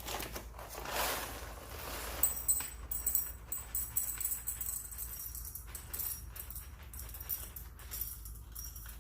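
Whole coffee beans rattling and clicking against a container as a dose is poured out and weighed.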